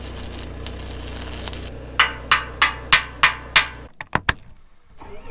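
Electric arc welder crackling over a steady hum of the welding machine. About two seconds in come six sharp metal-on-metal strikes, roughly three a second, like a hammer on the welded steel. After a sudden cut, a few quick clicks of a key turning in a tractor's ignition switch.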